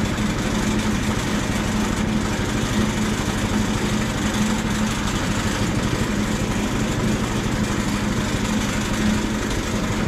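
Portable band sawmill's small gasoline engine idling steadily, with an even, unbroken hum.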